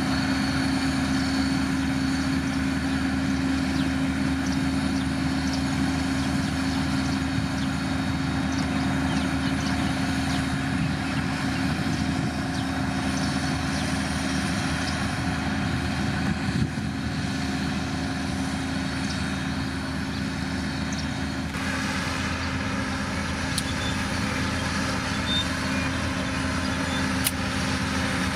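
Heavy road-building machine's diesel engine running steadily, with a shift in its note a little over two-thirds of the way through.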